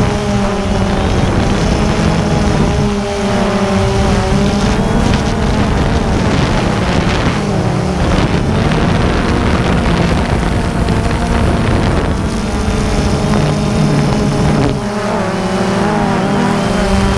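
Quadcopter drone's motors and propellers whining steadily, heard up close from a camera mounted on the drone. The pitch shifts as the drone manoeuvres, most noticeably about three seconds in and again near the end.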